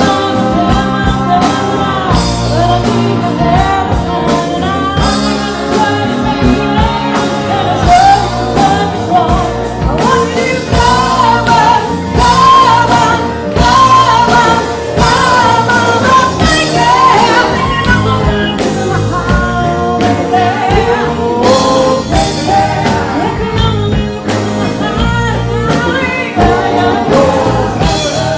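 Rock band playing with a woman singing the lead vocal.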